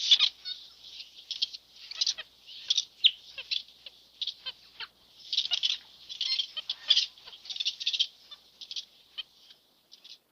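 Birds chattering: a rapid, irregular run of high-pitched, scratchy calls that cuts off abruptly near the end.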